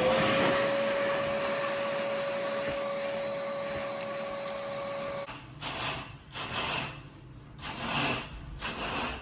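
A small electric motor spins up, its whine rising quickly to a steady pitch over a rushing hiss. It runs evenly for about five seconds and then cuts off suddenly, followed by a few short rustling bursts.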